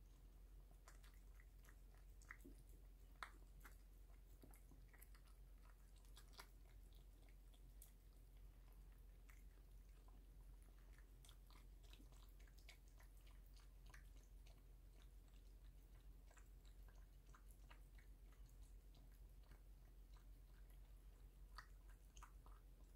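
Faint, close sounds of a cat chewing and licking wet cat food from a ceramic bowl: many small wet clicks and smacks at an irregular pace.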